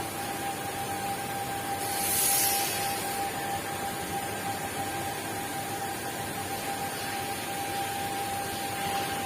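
CNC cutting machine running: a steady hiss with one constant whine, and a louder sharp hiss swelling up for about a second, two seconds in.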